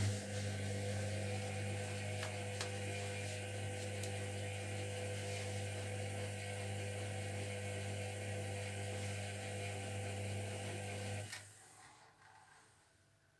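Zerowatt/Hoover Performa 1000 washing machine at the start of a wash cycle, running with a steady hum and hiss that stops about eleven seconds in.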